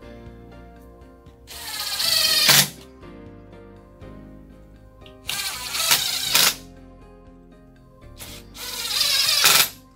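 Cordless drill-driver driving wood screws into a wooden block through the mounting holes of a hinge, in three runs of about a second each. The motor rises in pitch through each run and stops abruptly as the screw seats.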